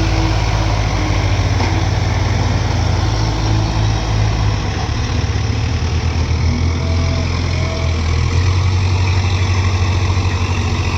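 Heavy diesel machinery running steadily, with a low, evenly pulsing engine note that shifts about four and a half seconds in.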